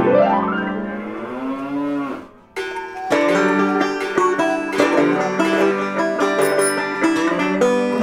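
Background music on banjo and acoustic guitar. It opens with one long sliding tone that rises, then falls away over about two seconds, before the plucked-string tune comes back in.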